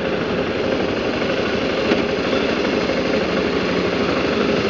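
BMW G650GS motorcycle's single-cylinder engine running steadily while riding along a city street, over a constant haze of road and wind noise.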